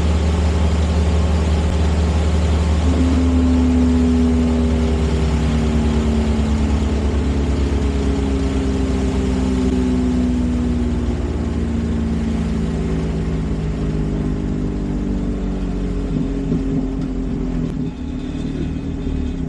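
A large engine running steadily, its pitch drifting slowly up and down.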